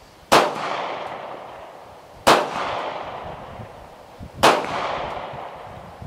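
Three gunshots about two seconds apart, each followed by a long echo that fades away.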